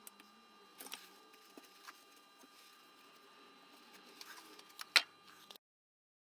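Small clicks and light knocks from a steel rod and a metal ring being handled in a bench vise, with one sharper knock about five seconds in; the sound cuts off suddenly just after.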